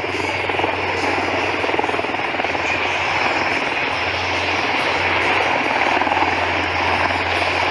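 Aircraft engine running steadily, a continuous rushing noise with a low hum that swells over the first second and then holds level.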